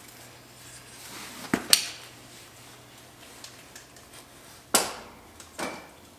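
A few short, sharp clinks and knocks from car parts or hand tools being handled during disassembly: two close together about a second and a half in, then two more near the end, over a faint steady low hum.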